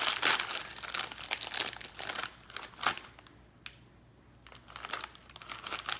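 Crinkling of a plastic-foil chip bag being handled and opened, loud and crackly for the first few seconds, easing off briefly, then crinkling again near the end.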